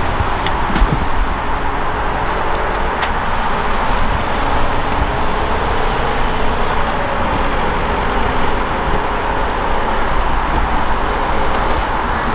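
A vehicle engine running steadily, with a few faint clicks in the first three seconds.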